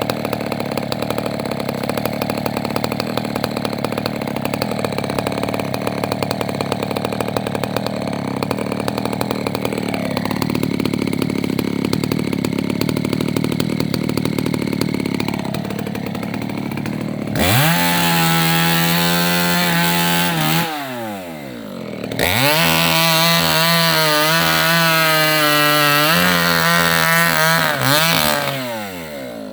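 Two-stroke chainsaw idling for a little over half the time, then revved to full throttle twice to cut through rubber-tree branches. After each cut the engine drops back toward idle with a falling pitch.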